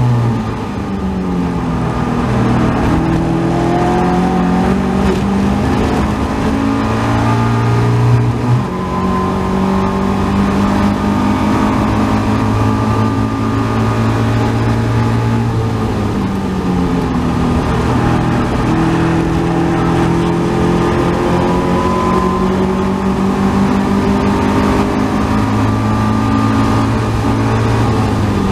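Caterham 270R race car's Ford Sigma four-cylinder engine at full throttle, heard from the open cockpit. The pitch climbs in long pulls and drops suddenly a few times, with wind noise underneath.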